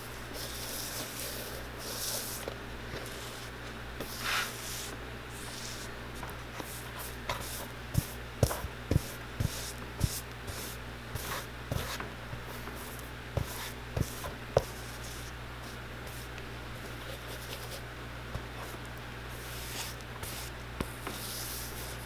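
Cork filler being worked into the bottom of a shoe: soft scraping and rubbing, with a run of sharp taps between about eight and fifteen seconds in. A steady low hum runs underneath.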